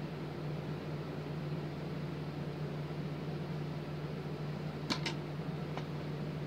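Steady low mechanical hum with hiss, like a running fan. Two sharp little clicks come about five seconds in, and a fainter one shortly after.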